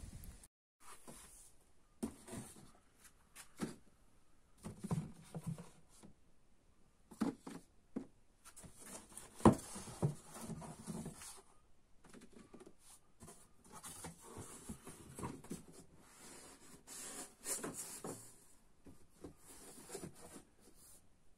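Scattered light knocks, rustles and thuds in a small room, with one sharper knock about nine and a half seconds in.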